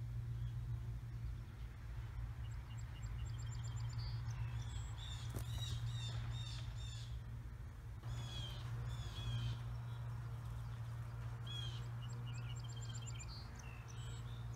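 Small songbirds singing outdoors: repeated high chirps and quick trills, several birds overlapping, over a steady low background hum.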